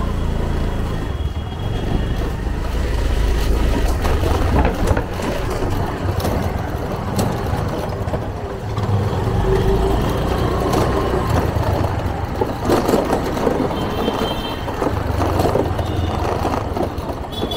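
Ride on a motor two-wheeler through city lanes: steady engine and road rumble with wind buffeting the microphone. Short high horn beeps sound near the end.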